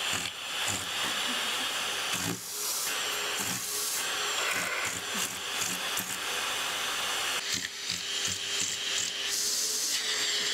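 Vacuum cleaner running with a cat pawing and mouthing its hose nozzle: a steady rushing hiss of suction that changes in strength and tone a couple of times as the nozzle is covered and uncovered.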